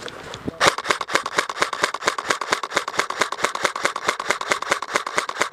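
Airsoft gun firing a long full-auto burst, a steady rapid rattle of shots at about nine a second that starts about a second in and stops abruptly at the end.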